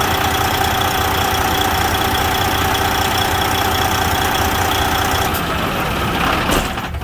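Freightliner Century semi truck's diesel engine idling steadily after a fuel filter change, with a steady whine over it. About five seconds in the whine and hiss drop away, and a sharp click follows near the end.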